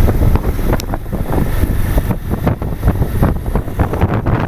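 Wind buffeting the microphone of a Bajaj Pulsar 150 motorcycle on the move, a loud low rumble in gusts, with the bike's engine running underneath.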